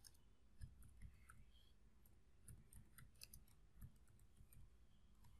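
Faint, irregular clicks of computer keyboard keys being typed, in short clusters of keystrokes.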